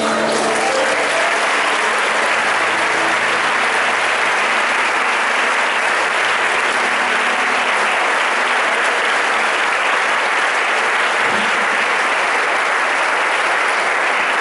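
A large crowd applauding, a dense, steady clapping that keeps up throughout. The band's last held chord dies away under it in the first few seconds.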